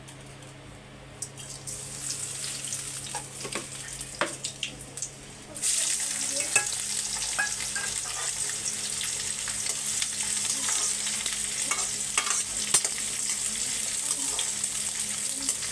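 Hot cooking oil in a steel kadai starts sizzling suddenly about five and a half seconds in and keeps up a loud, steady sizzle, with scattered clinks; before that only a few small knocks and clicks.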